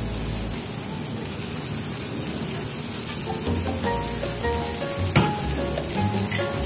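Diced tomatoes frying in a pan, a steady sizzling hiss, under background music with a bass line that comes up after about three seconds. A sharp tap sounds about five seconds in.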